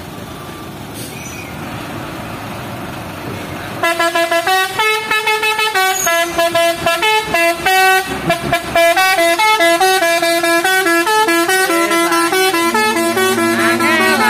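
Truck's multi-tone musical "telolet" air horn playing a quick tune of stepped notes. It starts suddenly about four seconds in, over the running of truck engines and traffic.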